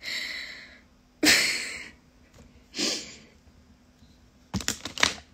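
A woman breathing out audibly several times: one breathy exhale, then a louder one that starts suddenly about a second in, then a shorter one near three seconds, followed by a few short clicks near the end.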